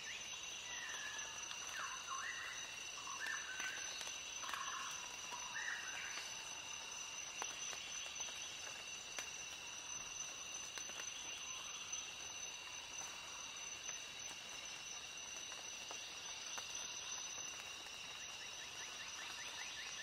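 Ambient nature sounds: a steady high-pitched insect chorus, with several short chirping calls in the first few seconds and a quick run of ticks near the end.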